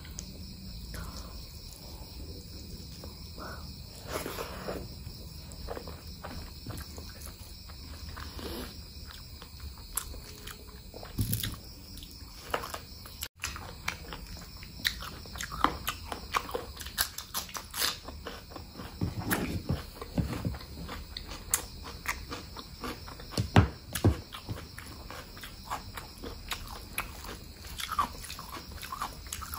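Close-miked eating sounds of a mukbang meal of spicy mutton fat curry, oily fried potato and rice: chewing and biting with irregular wet smacks and clicks, coming thicker in the second half.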